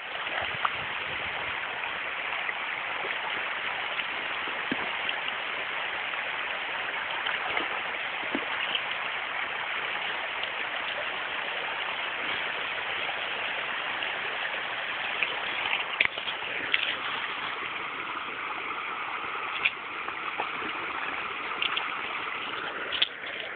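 Steady rush of running water, with a few short clicks in the last several seconds.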